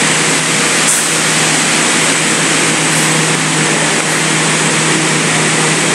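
Steady machinery drone from a working sugar mill: a constant low hum under an even rushing noise, unchanging throughout.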